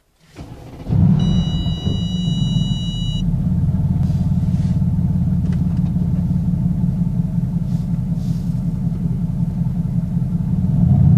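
Mercedes-AMG GT S's 4.0-litre twin-turbo V8 cold-starting, heard from inside the cabin: a brief crank, then it catches with a loud flare about a second in and settles into a steady fast idle. A high steady tone sounds for about two seconds just after it fires.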